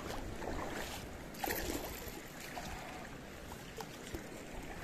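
Shallow river water sloshing and splashing around a wading angler and a landed catfish, with one louder splash about one and a half seconds in.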